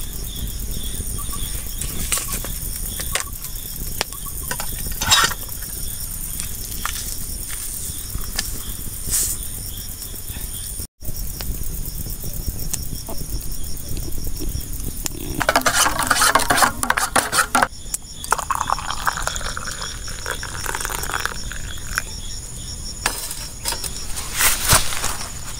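Insects chirring steadily in the forest, with scattered clicks and knocks. A louder burst of noisy handling sound comes a little past the middle and is followed by a few seconds of fainter pitched sound.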